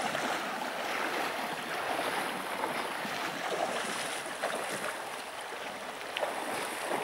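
Shallow river water rushing and splashing around legs wading across it: a steady hiss of flowing water with a few small splashes.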